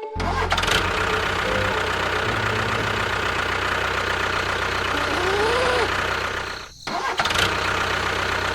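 A motor running steadily with a low hum, briefly cutting out about seven seconds in and then running on. A short rising-and-falling tone sounds over it about five seconds in.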